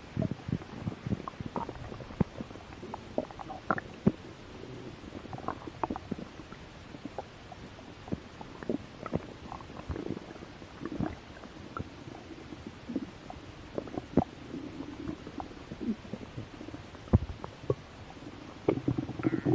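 A hungry person's stomach growling and gurgling, with frequent short pops and squelches over stretches of low rumbling, the rumbles swelling a few times and again near the end.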